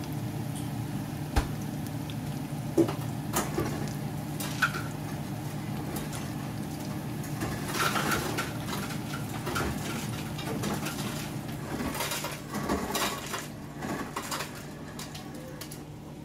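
Kitchen utensils clinking and scraping against dishes and a pan over a steady low hum. There are a few sharp knocks in the first seconds, and busier clatter through the second half.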